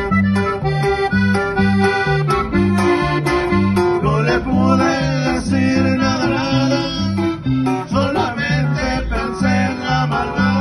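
Live norteño band playing: an accordion leads the melody with quick runs, over guitar and a steady bass that alternates between two notes.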